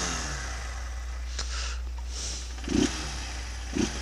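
Honda CG 160's single-cylinder engine running warm, a steady low hum with no tapping from the valve train, after its cam chain and tensioner play were fixed. A few short pulses sound near the end.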